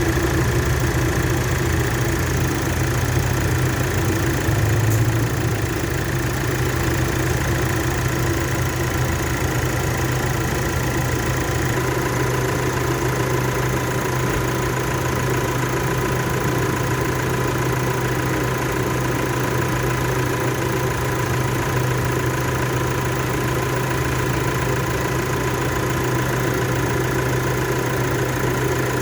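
Nissan Calibre engine idling steadily. A faint, steady high whine joins about twelve seconds in.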